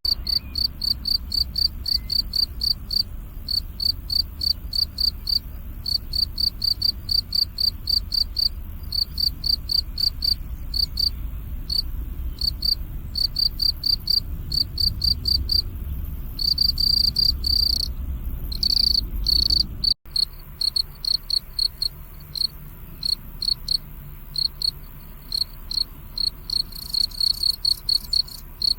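Crickets chirping in a steady run of short, even chirps, about three a second, that merge into longer continuous trills about two-thirds of the way through.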